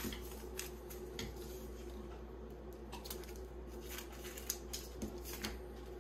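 Faint scattered clicks and crinkles of yeast packets being handled and opened, over a steady low hum.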